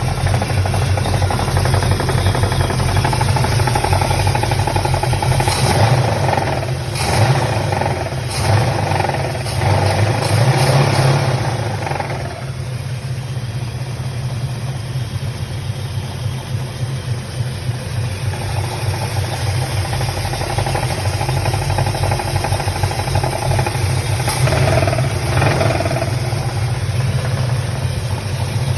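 A 1966 Chevelle's 396 big-block V8 running with a knocking noise. It surges louder a few times between about 6 and 12 seconds in, and again around 25 seconds.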